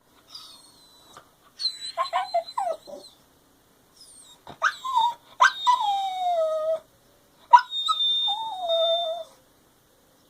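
A dog whining for attention: a string of high, drawn-out whines that slide down in pitch, with the longest ones in the second half.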